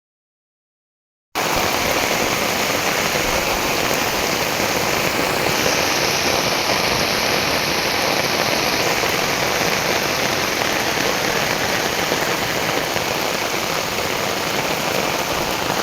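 Heavy rain pouring down, a steady dense hiss that begins about a second in.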